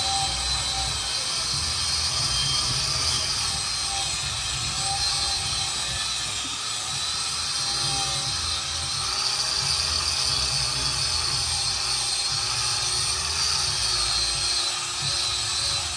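Handheld power tool running steadily, cleaning up pipes ahead of welding.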